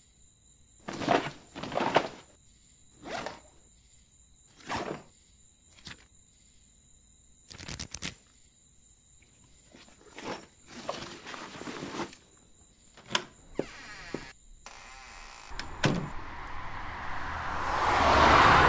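A string of short, separate rustling and breathy sounds a second or more apart, some sharper, as someone handles cloth and a bag. Near the end a passing car's road noise swells up to the loudest point.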